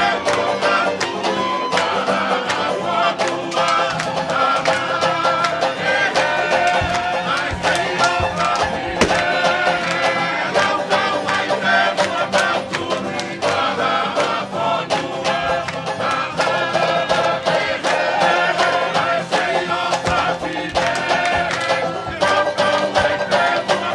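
Live Tongan string band playing a tau'olunga song: acoustic guitars, banjo and ukulele strummed in a steady rhythm, with group singing over them.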